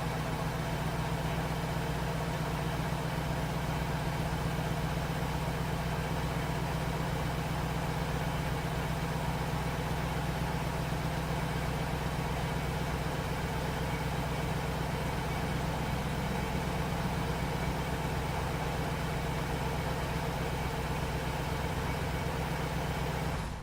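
Cadillac Seville's V8 engine idling steadily.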